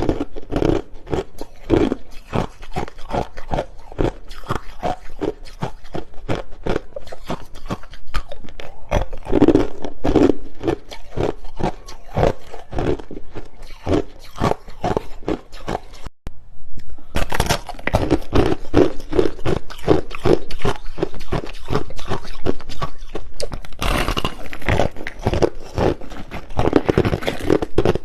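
Clear, hard crushed ice being bitten and chewed close to the microphone: a dense, continuous stream of sharp crunches. A brief break about halfway through, after which the crunching is louder.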